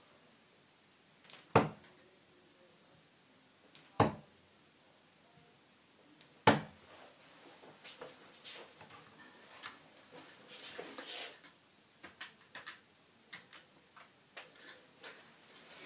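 Three darts thudding into a sisal bristle dartboard (Unicorn Eclipse Pro), one every two and a half seconds or so. After them comes a scatter of small clicks and ticks as the darts are pulled back out of the board.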